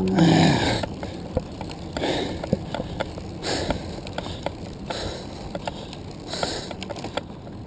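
Handcyclist breathing hard while cranking, a loud exhale in the first second and then a breath about every second and a half. Under it, short ticks and rattles from the handcycle's chain and drivetrain.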